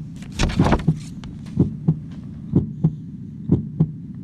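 Heartbeat sound: a steady double thump, lub-dub, repeating about once a second over a low steady hum.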